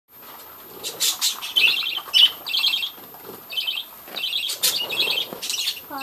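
Small pet parrots chirping in quick, repeated clusters of high notes, over the crinkle of a plastic bag of bird seed being scooped by hand.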